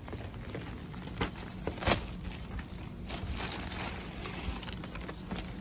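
Handling noise as an insulated food-delivery bag is opened on a concrete porch and the order set down: rustling, with clothing brushing over the phone's microphone. Two sharp knocks come about one and two seconds in, the second the loudest.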